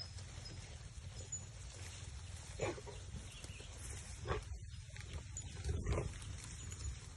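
Goats giving three short calls, spaced a second or two apart, over a steady low rumble.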